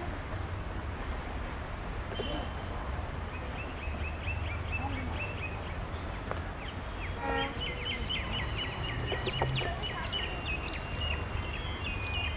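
Small birds chirping in quick, short repeated calls, sparse at first and busier from about halfway through, over a steady low rumble.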